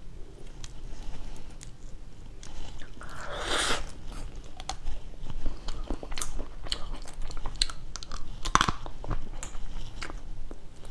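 Cooked spiny crab legs being cracked and snapped apart by hand, their thin, brittle shell giving sharp cracks throughout. The loudest crunches come about three and a half seconds in and again near eight and a half seconds, then chewing close to the microphone.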